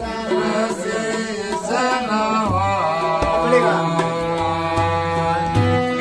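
A man singing a Ramlila verse in a drawn-out, ornamented melody over steady harmonium chords, with a few tabla strokes.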